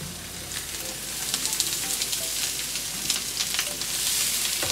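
Chopped vegetables (spinach, red bell pepper, red onion and mushrooms) sizzling in a hot frying pan as they are slid in off a cutting board. The sizzle grows louder about a second in, with small crackles through it.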